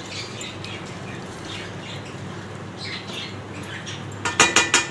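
Wooden spatula stirring minced meat in a steel karahi over a steady low sizzle, with a few soft scrapes, then about five quick knocks of the spatula against the steel pan near the end, each with a short metallic ring.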